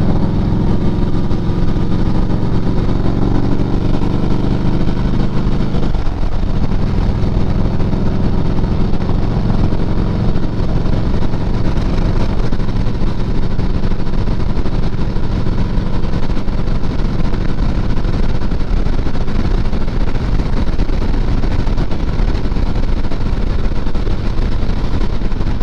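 Motorcycle engine running steadily while riding, over a continuous rush of noise; the engine note dips briefly about six seconds in, then holds steady.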